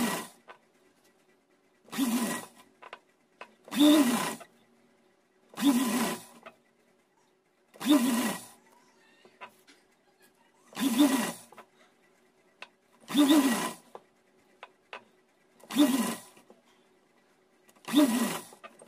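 Sewing machine stitching in short runs of under a second, about nine of them spaced roughly two seconds apart, stopping between runs while the fabric is turned. It is tacking a net frill around a curved edge.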